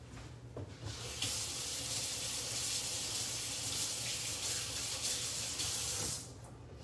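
Kitchen faucet running while hands are washed under it: a steady rush of water that starts about a second in and is shut off about six seconds in.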